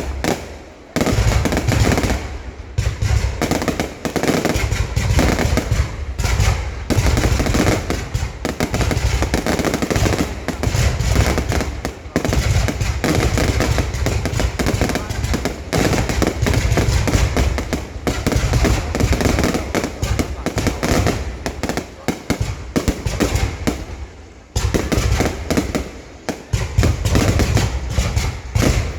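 Fireworks going off in a dense, continuous barrage of bangs and crackling, with a few brief lulls.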